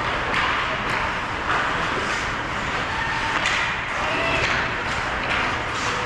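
Ice hockey game sound in an indoor rink: a steady hiss of skates on the ice and the echoing hall, with scattered clicks and knocks of sticks and puck and faint distant shouts.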